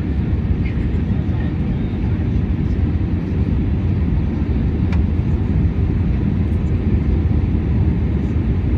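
Steady low rumble of cabin noise inside a four-engined Airbus A340 airliner on its descent to land: engine and airflow noise heard from a passenger seat.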